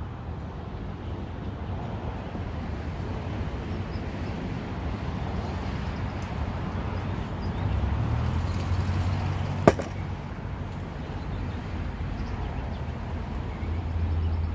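Honey bees humming steadily around an open, crowded hive. A single sharp click comes near the middle.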